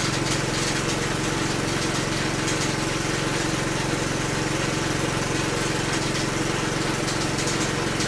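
Air compressor running steadily, a constant motor drone that supplies the air line for a pneumatic impact wrench.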